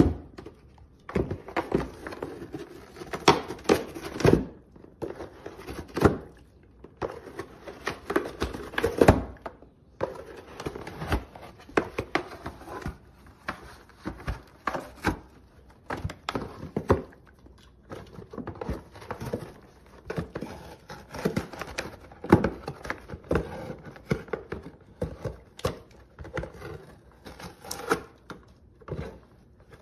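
A dog tearing apart a cardboard LEGO box with its teeth and paws: irregular rips, crackles and crinkles of cardboard and packaging, with a few louder snaps.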